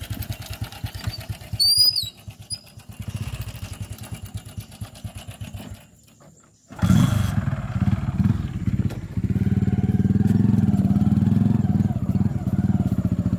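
Small motorcycle engine running at low revs while towing a cart loaded with heavy timber beams, with a short break about six seconds in. After the break it runs louder and steadily. A few short high chirps sound about two seconds in.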